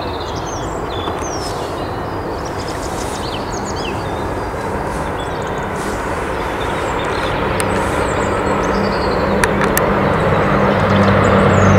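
Boeing 747-400's jet engines heard from a distance, a steady rushing roar that grows slowly louder, with a low hum coming in near the end. Birds chirp faintly over it.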